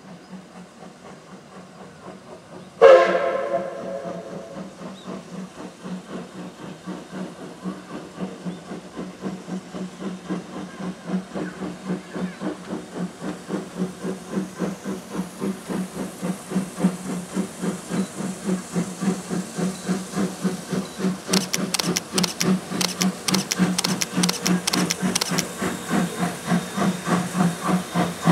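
Japanese C58-class steam locomotive C58 363 sounds one short blast on its steam whistle, then its exhaust chuffs in a steady beat that grows louder as the engine approaches and passes.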